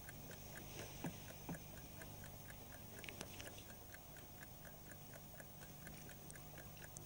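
A clock ticking faintly and steadily, about four ticks a second, with a couple of soft knocks about a second in.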